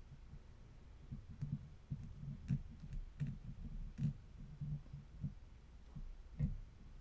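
Lock pick working inside a Master Lock No. 3 padlock under light tension: soft scraping and low knocks with a few sharp clicks of pins, scattered irregularly, as the pins are lifted and set one by one.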